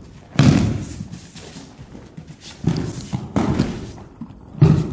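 Aikido partners being thrown and landing on foam judo mats: a loud thud about half a second in, two more in the middle, and another loud one near the end.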